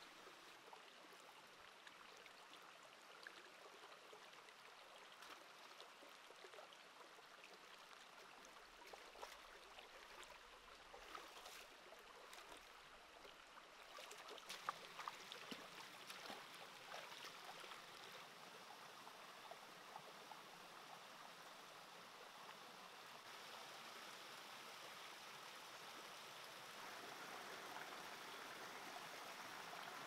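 Faint, steady rush of a shallow stream running over rocks. About halfway through come a few sharp splashes and clicks of bare feet wading through the water. The water grows louder toward the end.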